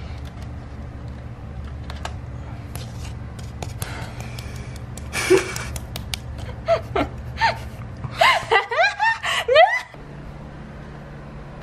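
A woman's high-pitched squeals and gasping laughs: a loud cry about five seconds in, then a fast run of short rising-and-falling shrieks that stops abruptly near the end, over a steady low hum.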